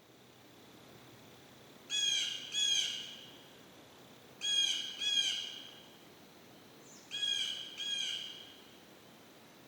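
Blue jay giving harsh, squawking jay calls: six calls in three quick pairs, about two and a half seconds apart.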